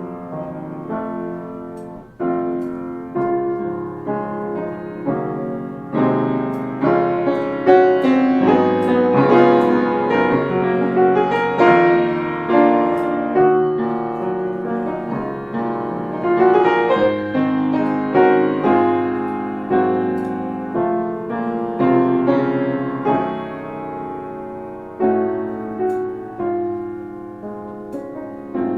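Piano music: chords and melody notes struck one after another, each left to ring and fade.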